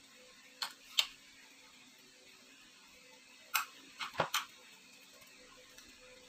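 A few short clicks and taps from handling food and dishes at a table, the loudest a low knock about four seconds in as a peeled mango is set down on a plate, over a faint steady hum.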